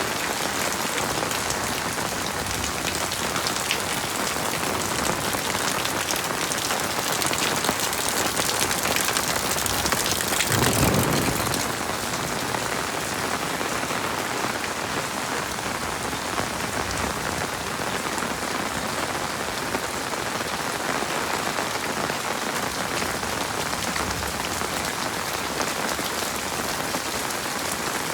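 Heavy rain falling steadily, with a brief louder swell about ten seconds in.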